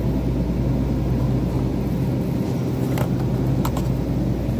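Steady low hum of a supermarket refrigerated display case. A couple of light clicks of plastic packaging being handled come about three seconds in.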